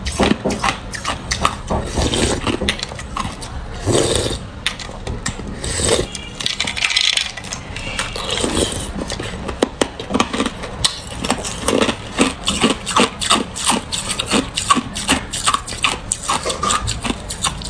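Ice being chewed and crunched between teeth: dense, irregular crackling that gets faster and thicker in the second half. A plastic spoon scrapes at ice in a bowl.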